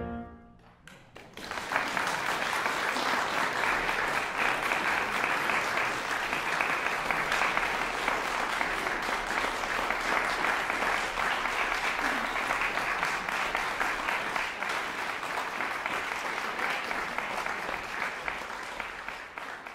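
Audience applause breaking out about a second after the music ends, a steady dense clapping that fades away near the end.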